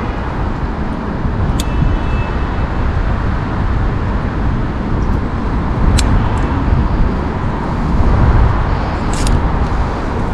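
Steady background rumble of road traffic, with a few light clicks from handling a roll of insulating tape.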